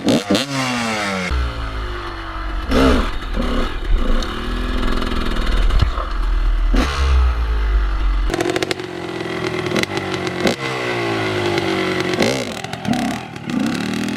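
2003 GasGas EC 250 two-stroke enduro bike with a Pro Circuit full exhaust, revved sharply several times, the pitch falling back after each rev. A low rumble sits under it from about one second to eight seconds in.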